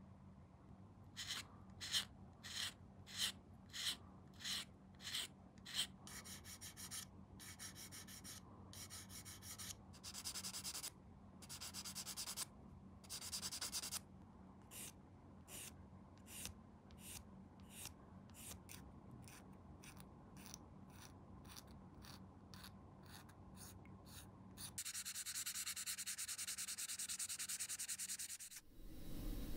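Hand sanding of a plastic model-kit part: short back-and-forth rubbing strokes, about two a second at first, then longer and quicker strokes. It ends with about three seconds of steady hiss.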